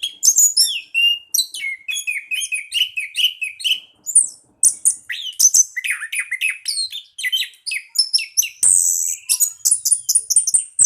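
Orange-headed thrush singing its fast, continuous 'ngerol' song: a rapid run of varied whistles and chirps, with a short pause about four seconds in.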